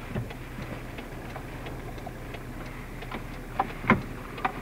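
Scattered taps of raindrops hitting the car's body and windshield during a thunderstorm, over a steady low hum from inside the car. A few louder knocks come near the end.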